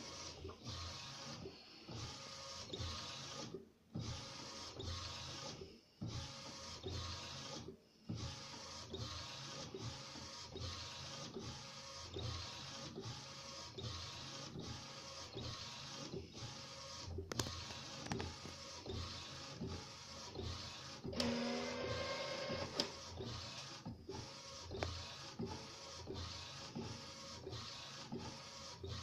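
Epson SureColor SC-P600 inkjet printer, converted for direct-to-garment printing, with its print-head carriage shuttling back and forth as it prints. Its motor whirs with brief pauses at the carriage turnarounds, and a higher mechanical whine rises briefly a little past two-thirds of the way through.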